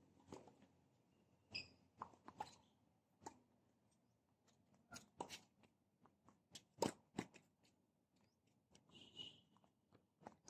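Tennis rally on a hard court: sharp pops of the ball coming off racket strings, alternating with ball bounces on the court, about a dozen knocks at irregular spacing. A couple of short, high squeaks, about a second and a half in and again near the end.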